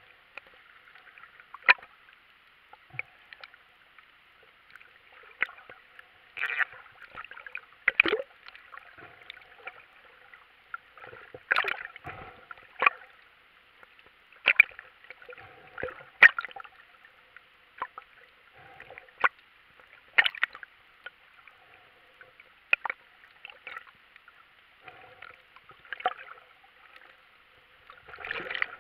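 Underwater sound through a camera's waterproof housing: a steady, muffled hiss with irregular sharp clicks and knocks every second or so, some louder than others.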